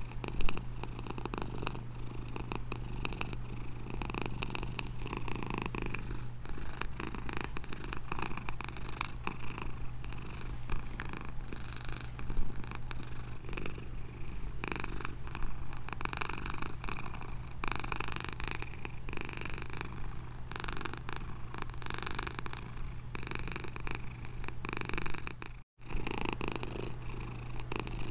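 Domestic cat purring steadily and continuously, the purr cutting out for an instant near the end.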